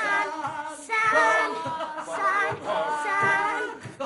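Several voices, adults and children, singing together loudly without any instruments, with long held, wavering notes.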